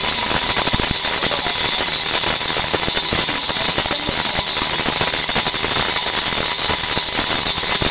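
DBL 3000 on-car brake disc lathe spinning a brake disc on the car's hub, its cutting tip machining the disc face: a steady, loud mechanical running noise with a dense, rapid scraping chatter.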